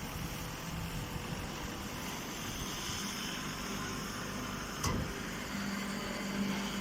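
Hydraulic hay baler running with a steady mechanical hum that grows stronger near the end, and a single click about five seconds in.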